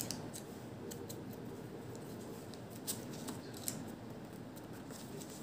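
Faint crackle and rustle of origami paper being folded back and pressed into a crease by fingers, with a scattering of small ticks.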